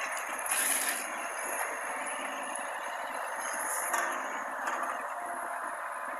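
Mini excavator running steadily, with clatter and scraping of building rubble being moved, loudest just before a second in and again about four seconds in.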